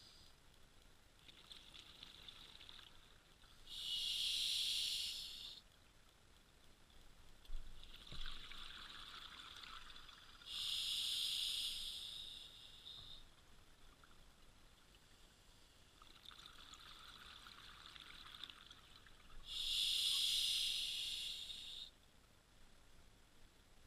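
Scuba diver breathing through a regulator underwater: a soft hiss on each inhale, then a loud rush of exhaled bubbles. Three slow breaths, about seven to nine seconds apart.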